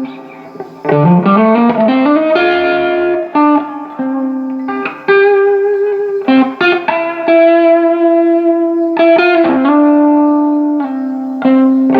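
Electric guitar played through a Carr Lincoln valve amp running new JJ EL84 power tubes: single held notes, with a slide up in pitch about a second in.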